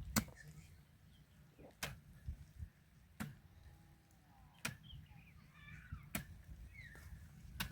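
Sharp knocks at an even pace, about one every second and a half, over a low wind rumble, with a few faint high chirps near the middle.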